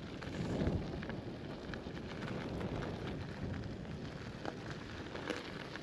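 Wind buffeting the microphone of a camera on a moving bicycle: a steady rumbling noise, with faint scattered crackles on top.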